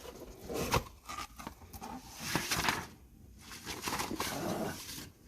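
Rustling, crinkling and light knocks as packaging and items are handled while unpacking a cardboard box, with several sharp clicks.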